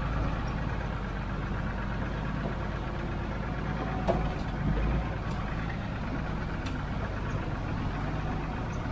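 Tata S-model 4x4 truck's diesel engine running steadily as the truck drives through a shallow river, with a single knock about four seconds in.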